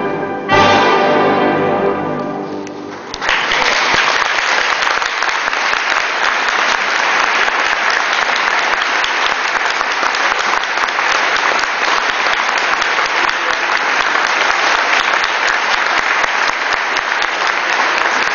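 Closing chord of a wind band with alto and soprano saxophone soloists, struck about half a second in and held as it dies away. About three seconds in, the audience breaks into steady applause, which carries on to the end.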